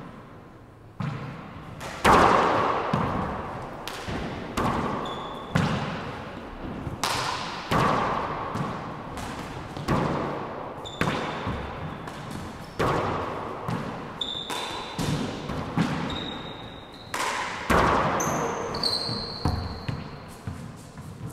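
A four-wall handball rally: the small rubber ball slapped by gloved hands and hitting the walls and floor about once a second, each hit echoing through the enclosed court. Short sneaker squeaks on the hardwood floor come between the hits.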